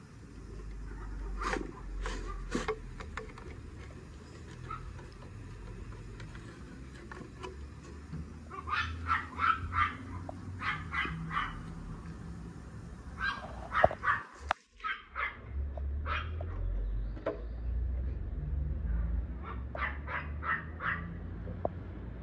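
A dog barking in short runs of quick barks, with a couple of sharp knocks near the start and a steady low rumble underneath.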